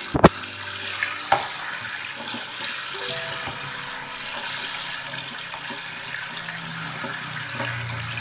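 Tap water running steadily into a stainless-steel sink and splashing in a plastic bowl as raw prawns are rinsed by hand under it. A sharp click comes near the start and a lighter knock about a second later.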